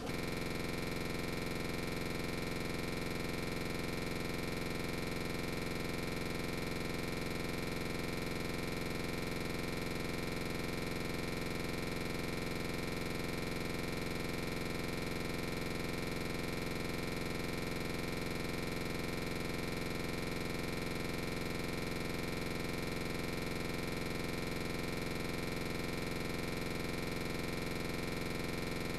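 Steady electronic drone: many fixed tones sounding together, unchanging in pitch and loudness, starting abruptly as the talk ends.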